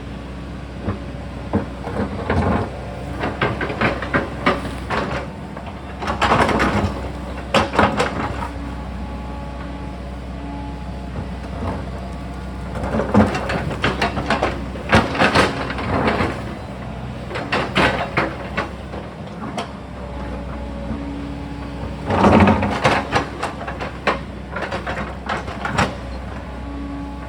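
Sany excavator's diesel engine running steadily while the bucket scrapes and clanks against rock and soil, in three bouts of banging, near the start, around the middle and near the end.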